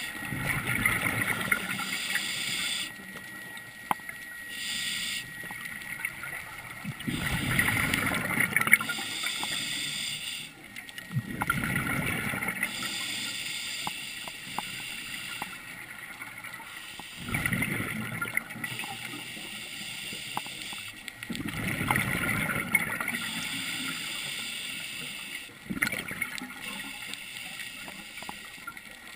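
Scuba regulator breathing heard underwater: exhaled bubbles gurgling out in bursts every four to five seconds, with a steady hiss and small clicks between.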